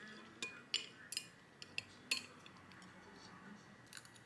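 Metal cutlery clinking against dishes: about six light, sharp clicks spaced irregularly over a few seconds.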